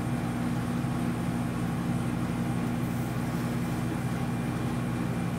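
A steady low mechanical hum, even throughout, with no distinct events.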